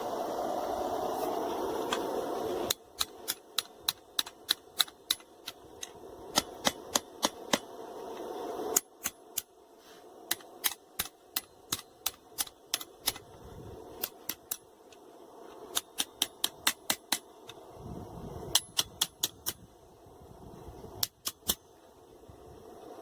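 Hammer striking hot steel on an anvil in quick runs of sharp blows, forging and bending the handle of a knife made from a wrench. A steady rushing noise fills the first few seconds before the hammering starts.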